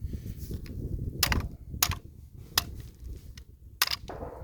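Sharp metallic clicks and clatter of a Remington 7400 semi-automatic rifle's action being handled to clear a jam, about four distinct clicks over a low rumble. The rifle has failed to feed the next round.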